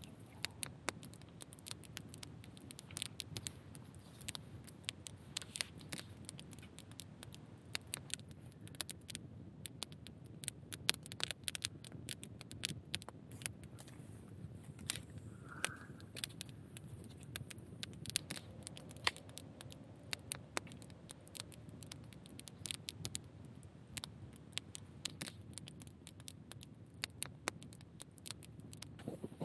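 Footsteps crunching in snow: a continuous run of irregular crisp crunching clicks, over a faint low background rumble.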